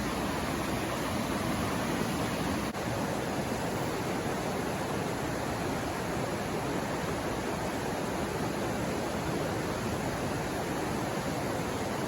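Steady rushing of river water flowing under a bridge, with one brief dip about three seconds in.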